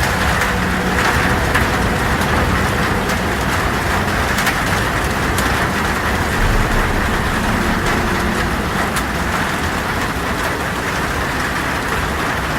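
Heavy rain on a tin roof: a steady dense patter with scattered sharp drop ticks over a low rumble.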